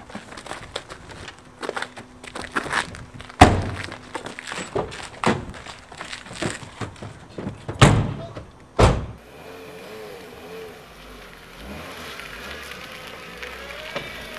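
Thumps and knocks of a struggle at a small hatchback car, with three heavy slams (the boot and doors being shut) at about three and a half, eight and nine seconds in. Then the car's engine runs and rises in pitch as it pulls away near the end.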